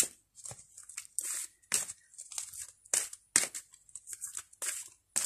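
A tarot deck being shuffled by hand: a run of short, uneven swishes and flicks, about three a second, as cards slide against each other.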